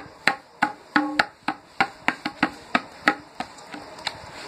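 Tabla played with both hands in a rhythm imitating a train: a steady run of sharp strokes on the dayan and bayan, about three a second, bunching closer together around the middle. One stroke about a second in rings on, and the strokes grow softer near the end.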